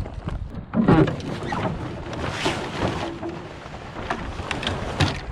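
Small wooden gaff-rigged sailboat under way, reefed, in a fresh breeze: water rushing and slapping along the hull, with scattered knocks and rattles from the sails and rigging and a louder burst about a second in.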